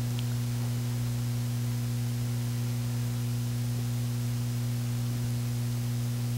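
Steady electrical mains hum from the sound system, a low buzz with a fainter overtone above it, under a constant hiss.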